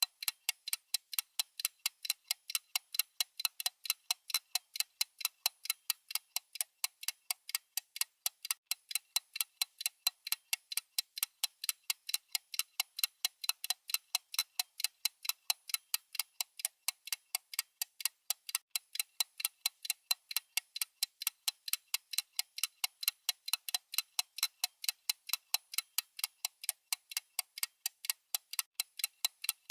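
Clock-style ticking sound effect of a countdown timer: short, high, thin clicks at a fast, perfectly even pace, several a second.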